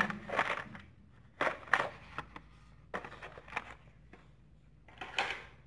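Hot Wheels cars in plastic blister cards being handled and stacked: a string of short crinkling and clacking sounds of plastic and card, about half a dozen over a few seconds.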